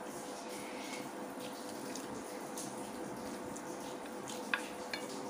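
Mouth-eating sounds of rice and curry being chewed, with small wet clicks, over a steady background hiss and faint hum; two sharp clicks come close together near the end as fingers work the food on the plate.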